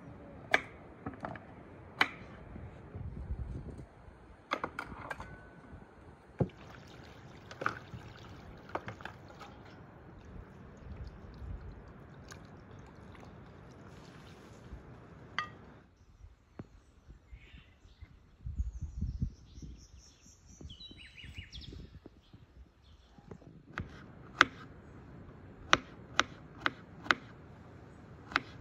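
Food-preparation sounds: water sloshing in a bowl as raw chicken pieces are handled, then a kitchen knife chopping a potato into cubes on a wooden cutting board, a quick series of sharp knocks near the end.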